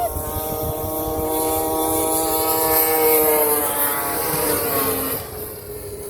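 Snowmobile engine passing by: it grows louder to a peak about halfway through, then fades as its pitch drops.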